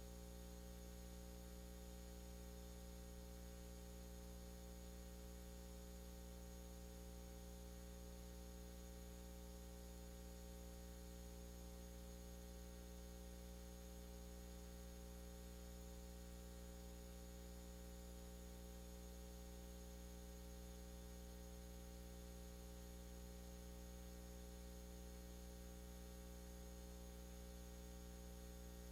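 Near silence apart from a faint, steady electrical hum made of several fixed tones, unchanging throughout.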